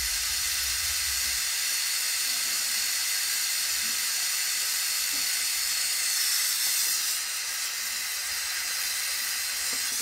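Jeweller's gas torch with a multi-orifice tip hissing steadily as its flame heats a ring to flow solder at the joint.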